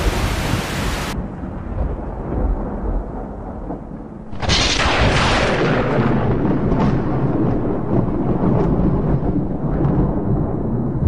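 Sound effects: TV-static hiss that cuts off sharply about a second in, leaving a low rumble; about four and a half seconds in, a sudden loud crash that trails off into a long deep rumble with scattered crackles.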